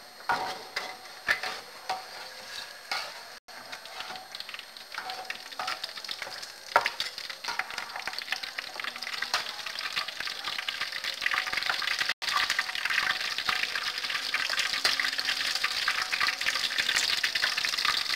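Corn fritters frying in hot oil in a wok: a metal ladle clicks and scrapes against the wok in the first few seconds, then the oil's sizzle grows louder from about seven seconds in.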